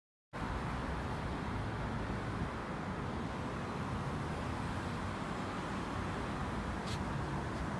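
Steady outdoor background noise cutting in just after the start: a low rumble and hiss of distant road traffic.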